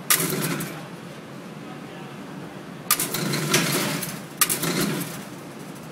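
Handgun shots at a shooting range: about four shots spread over a few seconds, each sharp crack followed by a short reverberant tail.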